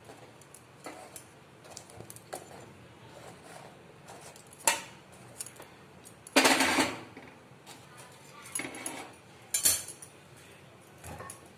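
Metal tongs clinking and clattering against a steel tawa and gas burner as a roti is turned over the open flame and moved off it. There is a sharp tap about four and a half seconds in, the loudest, longer clatter a couple of seconds later, and a few more clinks near the end.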